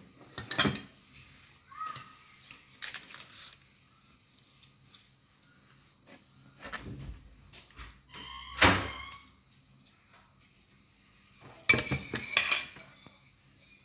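Scattered knocks and clinks of kitchen dishes and utensils being handled, with one louder, ringing clink about two-thirds of the way through.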